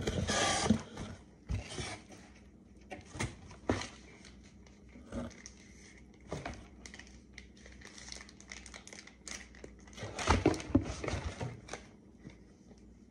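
Packaging handled by hand: crinkling and rustling with scattered clicks and taps, busiest near the end.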